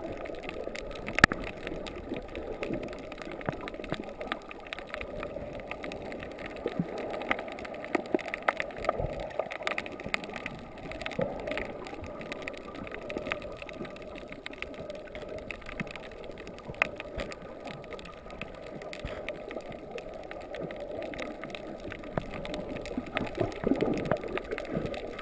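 Muffled underwater sound picked up through a camera's waterproof housing: a low, even wash of water with scattered small clicks and crackles.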